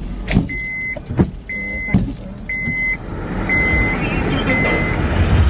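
A car's dashboard warning chime sounding about once a second, six short high tones, the last ones fainter, with a few sharp knocks in the first two seconds. A steady noise swells in the cabin over the last couple of seconds.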